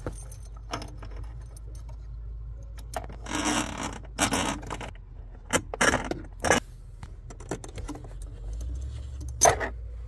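Scraping and rustling of footwell carpet and a coax cable being handled, in several short bursts, with a few sharp clicks; the loudest click comes near the end.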